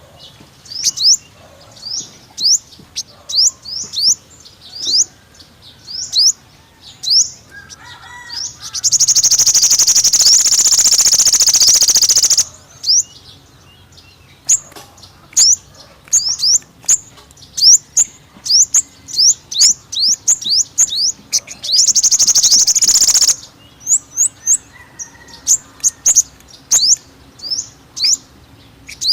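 A sunbird calling: sharp, high chirps repeated about once or twice a second, broken twice by loud, very fast high trills. The first trill comes about nine seconds in and lasts about three and a half seconds, and a shorter one comes about 22 seconds in.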